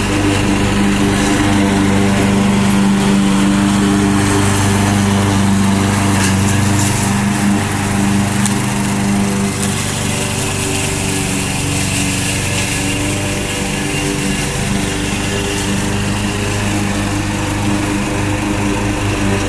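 Gasoline walk-behind lawn mower engine running steadily at cutting speed as the unmanned, self-propelled mower cuts grass in a circle around a tether stake. The engine note holds one pitch while the sound swells and fades slightly as the mower circles nearer and farther.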